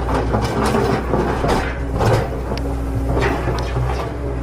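Plastic toy excavator bucket scraping and digging through dry sand in several separate strokes, over a steady low hum.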